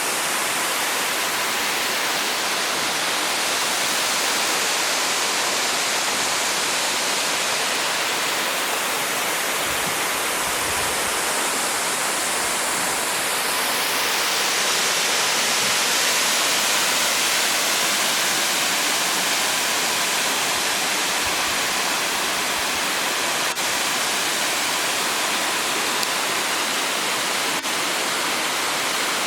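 Waterfall's steady rush of falling water, its tone shifting slightly around the middle.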